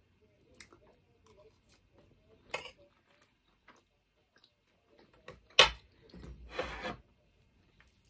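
Close-miked eating sounds: small wet mouth clicks of chewing a mouthful of rice and sausage. There is a short noisy burst about two and a half seconds in, and a sharp, loud knock about five and a half seconds in, followed by about a second of rushing noise.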